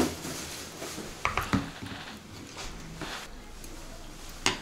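A metal spoon clinking and scraping against a pot of soup while eating: three quick clicks about a second and a half in and a single sharp click near the end.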